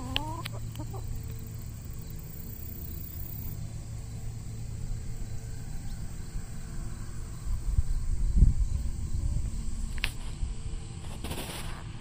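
A chicken gives a short call with rising notes in the first second, over a low steady rumble that swells around eight seconds in.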